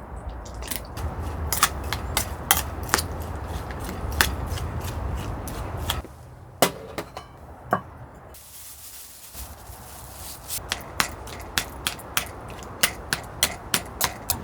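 Knife chopping food on a cutting board in sharp, irregular strokes over a low rumble. The sound breaks off about six seconds in, and the chopping resumes, more evenly, a few seconds later.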